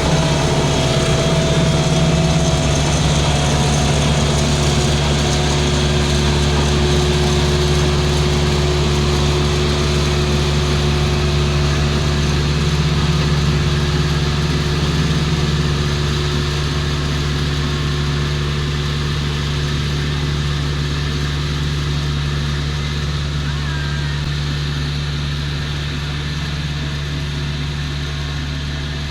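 Diesel engine of a Volvo road roller idling steadily, a constant low hum.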